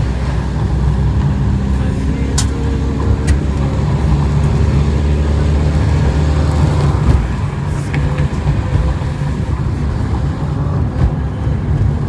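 A car's engine and tyre noise heard from inside the cabin while driving uphill: a steady low rumble.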